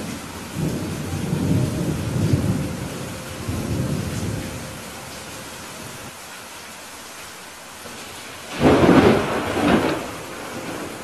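Steady rain with thunder: a low rumble that rises and falls over the first few seconds, then a sudden, louder thunderclap about eight and a half seconds in that dies away over a second or so.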